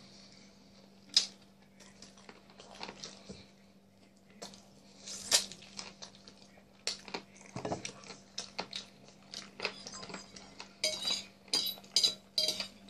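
Close-up eating sounds: chewing and mouth smacks of a man eating fried chicken, then a quick run of clinks from a metal fork against the plate in the last two seconds.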